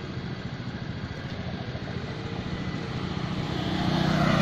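A motor vehicle's engine running steadily, growing louder toward the end.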